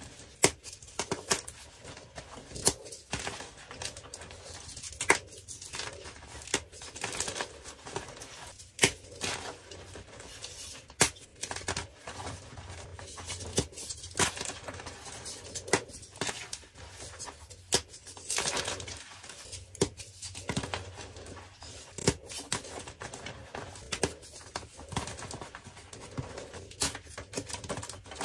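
Dyed gym chalk blocks being crushed and crumbled by hand: irregular dry crunches and sharp cracks as the blocks break, with a soft powdery crumbling between them.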